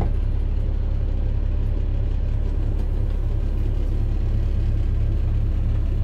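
Motorhome's diesel engine idling with a steady low rumble, heard inside the coach; it is kept running to power the slide-outs while they are drawn in.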